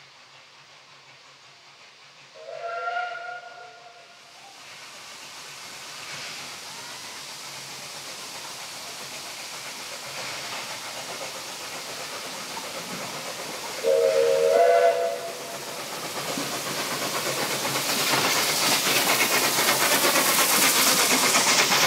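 Ex-South African Railways NG/G16 Beyer-Garratt steam locomotive sounding its steam whistle twice, a short chime-like blast of about a second each, a few seconds in and again about two-thirds through. Underneath, the steam hiss and running noise of the train grow steadily louder as it draws near and passes close by, loudest near the end.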